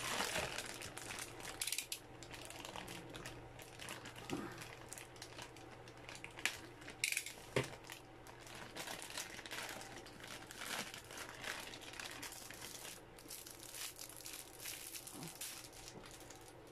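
Clear plastic packaging bags around bundled cables crinkling and rustling irregularly as they are handled, over a faint steady low hum.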